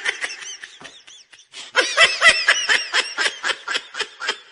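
High-pitched laughter in quick repeated bursts: a short run at the start, then a longer run of about five bursts a second from about a second and a half in.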